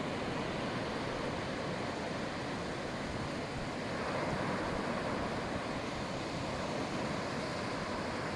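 Surf washing onto a sandy beach: a steady rush of breaking waves.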